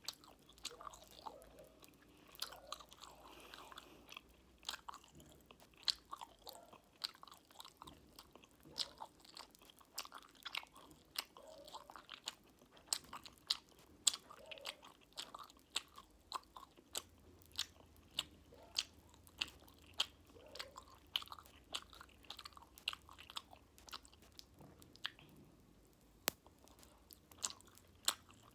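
Close-miked chewing and biting of fruit jelly with cola-flavoured popping candy: wet mouth sounds with sharp clicks and crackles, one to a few a second.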